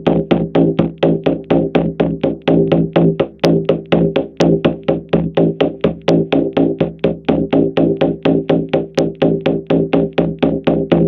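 Shamanic journey drum beaten in a steady, fast, even rhythm of about four strokes a second, each stroke ringing on into the next: the monotonous drumbeat used to carry the listener into a theta state.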